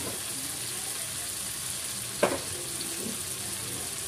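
Chicken curry frying in a steel kadai, a steady sizzling hiss just after water and cashew paste have gone in. There is one sharp metal clank about two seconds in.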